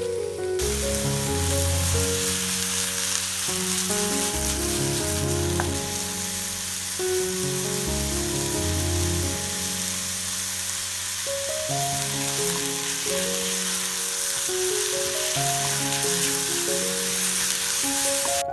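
Sliced mushrooms and onion frying in butter in a pan, a steady, dense sizzle that cuts off suddenly near the end. Background music plays under it.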